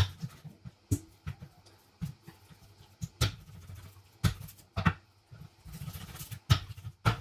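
Kitchen knife cutting up raw chicken on a cutting board: sharp, unevenly spaced knocks of the blade striking the board, roughly one a second, with softer handling noise between.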